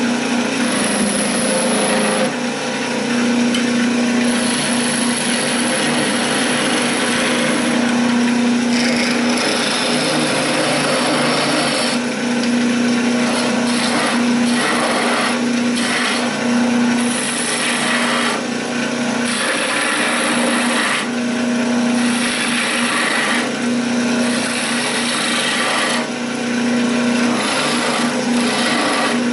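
Wood lathe spinning a wooden spindle with a steady hum, while a skew chisel cuts it: a hiss of shaving that swells and drops with each pass of the tool.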